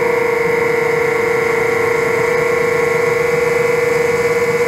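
7-inch FPV quadcopter's brushless motors and propellers whining at a steady pitch in flight.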